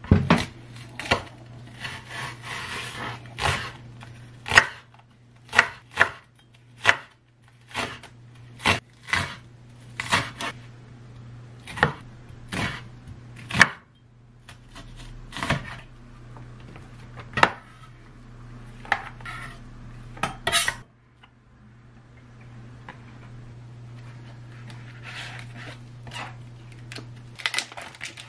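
Chef's knife chopping scallions and onion on a wooden cutting board: sharp knocks of the blade on the board about once a second, growing sparser and fainter in the second half. A low steady hum runs underneath.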